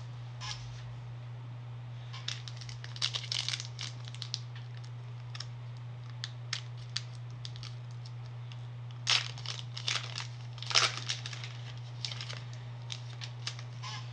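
Foil Pokémon booster pack wrappers crinkling and tearing as packs are handled and opened. Two bursts of crackling come about two seconds in and about nine seconds in, with scattered small clicks between them, over a steady low hum.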